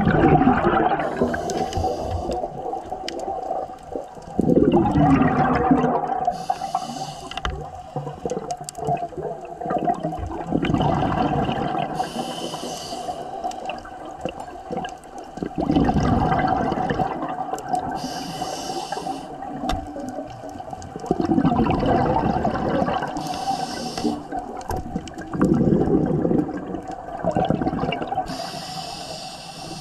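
Scuba regulator breathing underwater: short hissing inhalations alternating with louder rushes of exhaled bubbles, one breath cycle about every five to six seconds, over a steady hum.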